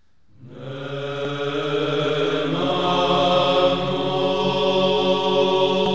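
Background music of slow, sustained vocal chanting over held notes, fading in over the first second.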